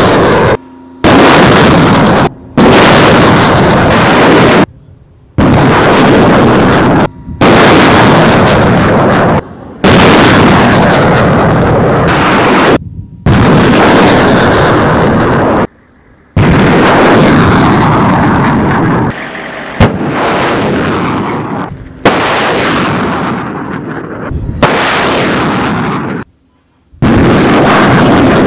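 HIMARS (M142) launcher firing rockets: the loud roar of rocket motors at lift-off, heard about a dozen times in short stretches that begin and break off abruptly. In several of them the roar fades as the rocket climbs away.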